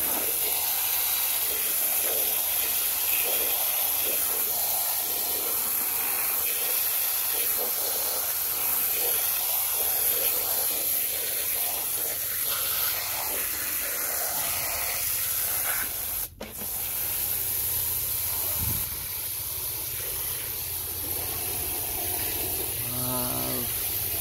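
Fine jet of water spraying and splashing onto muddy plastic toy figures: a steady hiss that breaks off for a moment about sixteen seconds in.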